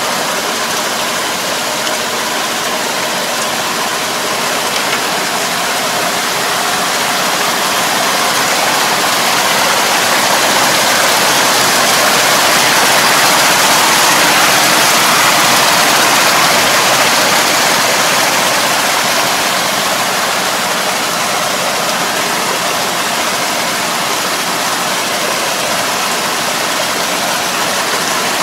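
Niplo drive harrow behind a tractor churning through a flooded rice paddy, a steady rush of splashing muddy water, with the tractor's engine running underneath. The rush swells louder through the middle as the harrow comes close.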